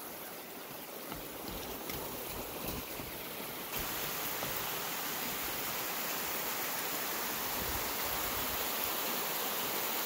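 Creek water rushing steadily over rocks, growing louder a little under four seconds in.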